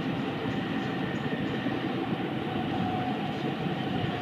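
Steady running noise inside a Jōetsu Shinkansen carriage moving along the line: an even rumble of wheels and air with a faint steady whine over it.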